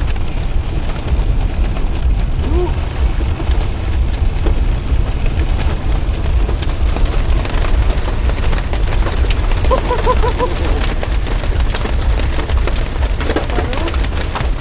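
Heavy storm rain pelting a car's roof and windows in many sharp ticks that grow denser near the end, over a steady low rumble of wind and road noise.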